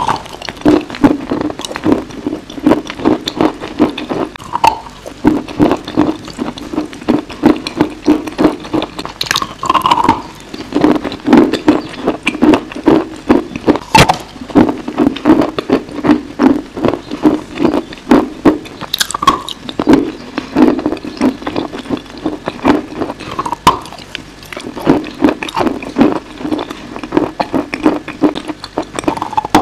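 Close-miked biting and chewing of a dry, chalky lump of edible clay: dense crunching in a steady chewing rhythm, with now and then a sharper snap as a piece breaks off, one very sharp one about halfway through.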